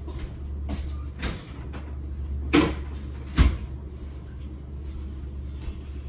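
Kitchen cupboard doors and things inside them being handled: a few light knocks, then two louder clunks around the middle, over a steady low hum.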